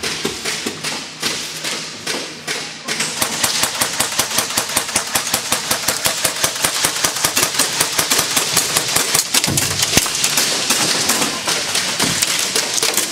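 Airsoft guns firing: scattered shots at first, then from about three seconds in a rapid, unbroken full-auto clatter of electric airsoft rifles.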